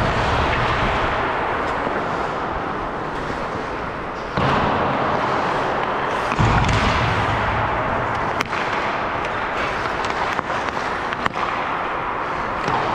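Ice hockey play: sharp cracks and thuds of sticks, puck and boards over a steady rink din, the sharpest crack about eight seconds in.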